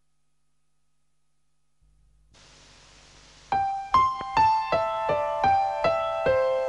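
Silence, then a bright electric-piano jingle starts about three and a half seconds in: single struck notes, roughly three a second, mostly stepping down in pitch.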